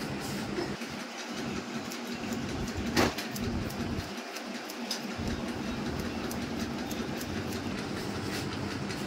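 Barber's steel scissors snipping over a comb, a run of quick metal clicks with one sharper snip about three seconds in, over a steady hum.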